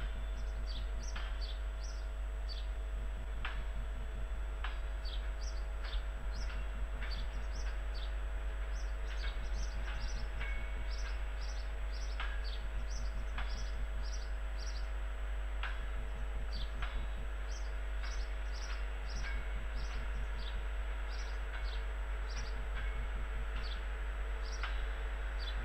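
Small birds chirping again and again, short high calls, over a steady low rumble and hum of a railway station while a train moves slowly past.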